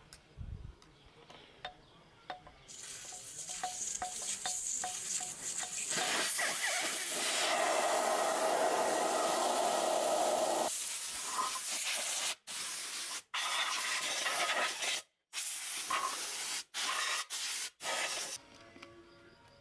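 Compressed air hissing from a handheld air blow gun aimed at a motorcycle wheel: a continuous blast that grows louder, then a series of short blasts cut off sharply as the trigger is let go.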